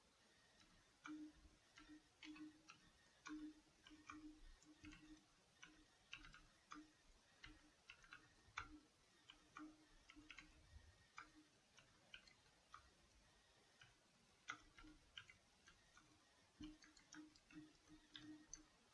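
Faint computer keyboard typing: irregular keystrokes in quick runs, with a pause of a couple of seconds about two-thirds of the way through.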